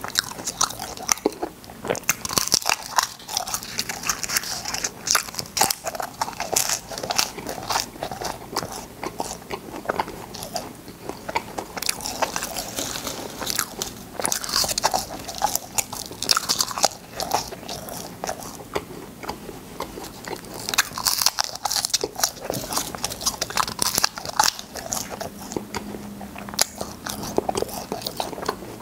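Close-miked biting and crunching of hard, shell-shaped cola-flavoured space candies: many sharp cracks in quick succession as the candy shells break between the teeth, with chewing in between.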